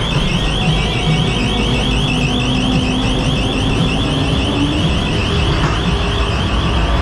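Electronic alarm effect inside a ghost train, warbling in fast repeating rising chirps, over the low rumble of the ride car on its track.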